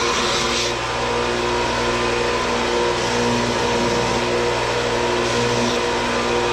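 Bench-top combination belt and disc sander running steadily with no wood against it: an even motor hum with a whirring, rushing noise over it.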